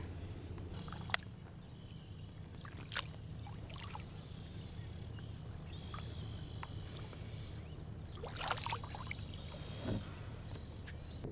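Lake water splashing and sloshing as a large largemouth bass is held in the water at a boat's side, over a steady low hum, with a few light knocks. The loudest splash comes about eight and a half seconds in.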